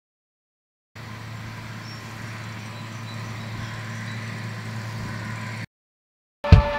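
John Deere self-propelled forage harvester running steadily, its engine hum slowly growing louder, then cutting off abruptly. After a short gap, music with a heavy drum beat starts near the end.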